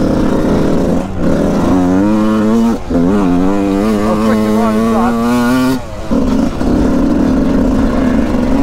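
Yamaha motocross bike engine revving hard under acceleration. The pitch climbs and breaks off at gear changes about one and three seconds in, then cuts off sharply around six seconds in before it runs on at a lower, steadier note.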